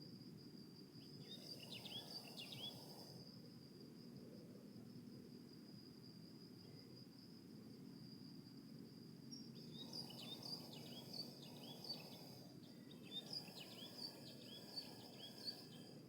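Faint bird chirps in three short bouts of quick rising-and-falling calls, over a steady high-pitched insect trill and a low rumble of outdoor background noise.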